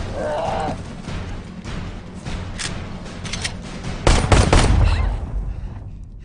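Pistol shots fired into sand, a few scattered ones and then a loud quick cluster about four seconds in, over film score. A strained grunt comes near the start.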